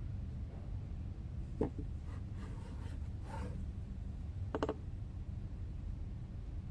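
Faint scraping and a soft knock of a knife cutting rolled dough, over a steady low hum, with a short clink about four and a half seconds in.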